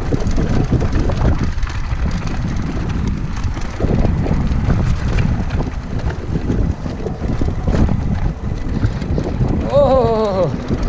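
Mountain bike rolling fast downhill over brick paving, rattling and knocking, with wind buffeting the microphone throughout. Near the end comes a brief wavering voice-like call.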